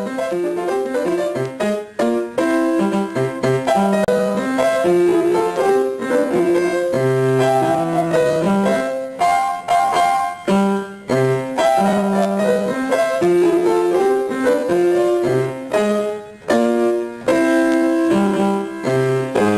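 Background music: a keyboard melody of distinct held notes, piano-like, with no speech.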